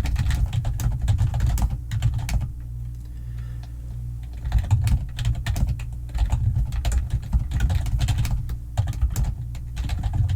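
Typing on a computer keyboard in quick runs of key clicks, pausing briefly about a third of the way in, over a steady low hum.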